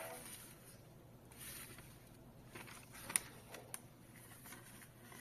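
Thin thermal receipt paper rustling as it is handled, with soft crinkles and a sharp click about three seconds in.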